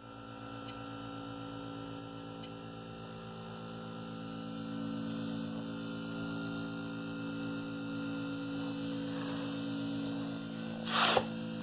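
Harvest Right freeze dryer's refrigeration compressor running with a steady hum, freshly switched on at the start of a cycle. A short noise breaks in near the end.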